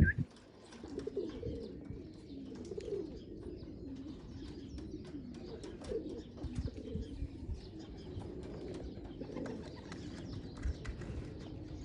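Racing pigeons cooing, several at once in overlapping low, bending calls, with light scattered clicks around them.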